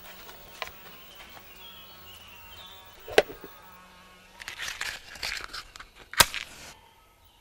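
Small-object handling of a cigarette box and matchbox: a sharp click about three seconds in, then a match scratched against the side of the box and struck with a sharp snap about six seconds in. A fly buzzes faintly.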